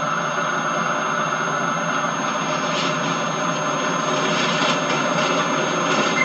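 Type 4 diesel locomotive running slowly with its train through station pointwork: a steady mechanical noise with a thin high whine throughout.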